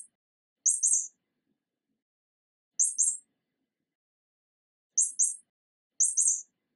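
Mouse squeaks: short, very high-pitched chirping squeaks coming in quick pairs, four times, with silence between.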